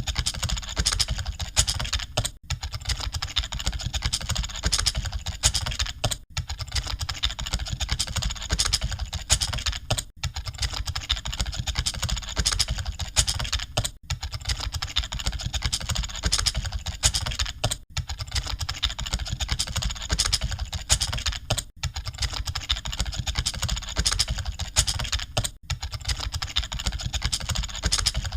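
Continuous fast typing on computer keyboards: a dense stream of key clicks over a steady low rumble. The stream dips briefly about every four seconds.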